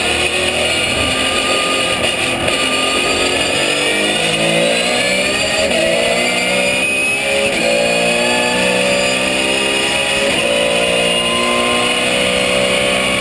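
Porsche 991 GT3 Cup race car's flat-six engine heard from inside the cockpit, accelerating hard at full throttle. The pitch climbs steadily and drops back at each upshift, several times.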